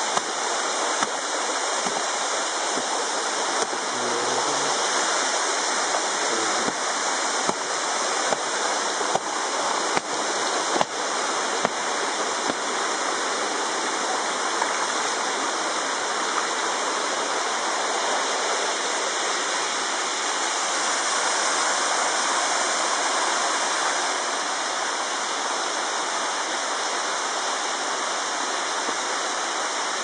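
Waterfall rushing steadily as water pours over rock, with a few short knocks in the first half.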